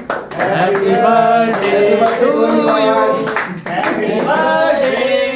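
A group of men singing a birthday song together, with hands clapping along.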